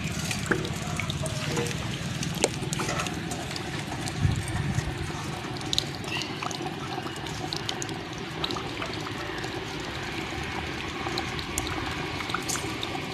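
Large pot of chicken biryani water and rice bubbling at a steady boil, with scattered small pops.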